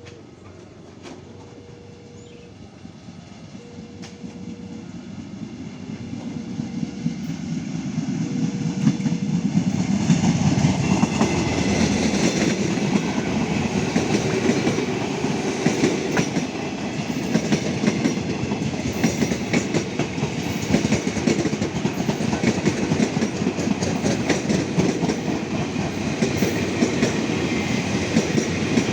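A train approaching and passing close by, its wheels clattering rhythmically over the rail joints. It grows louder over the first ten seconds and then stays loud. Through the first third a repeating beep sounds about once every one and a half seconds, then stops.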